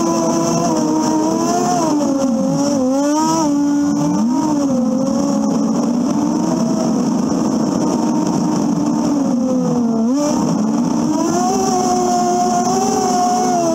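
Polaris 340 Classic snowmobile's two-stroke engine running under way, its pitch rising and falling as the throttle is worked. It drops low a few times and climbs sharply about ten seconds in.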